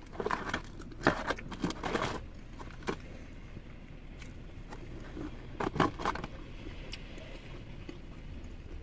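A person eating close to the microphone: chewing, with small clicks and crackles of a plastic fork and food, in two clusters, one in the first two seconds and another around six seconds in.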